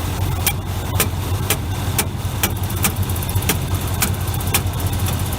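Sharp taps, about two a second, of a wooden hammer handle struck on the end of an air-conditioning compressor clutch, over the steady idle of a 454 big-block V8. The compressor clutch is not kicking on, and the taps are meant to free it.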